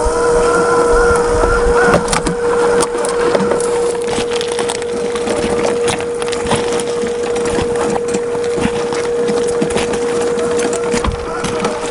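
Tamiya CC-01 radio-controlled car with a 55-turn brushed motor driving, its drivetrain giving a steady whine. From about two seconds in, dense irregular crackling and clicking comes from the tyres rolling over rough ground.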